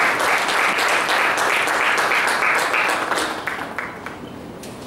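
Audience applauding, a dense patter of many hands clapping that fades out about three and a half seconds in.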